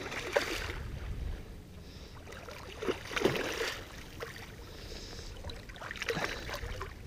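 Hooked striped bass thrashing at the surface of shallow water as it is led in on the line, several short splashes, the biggest about three seconds in, over a low steady rumble.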